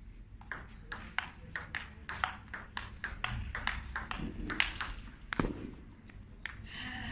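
Table tennis ball clicking back and forth off the bats and the table during a rally: a quick, irregular run of sharp ticks that stops after about five seconds when the point ends.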